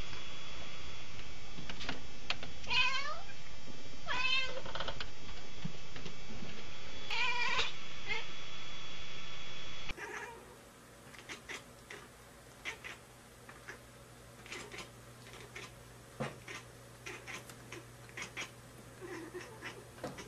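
Domestic cat meowing three times in the first half, each meow a single pitched call that bends in pitch. About halfway through, the sound cuts to a quieter stretch with scattered small clicks and taps.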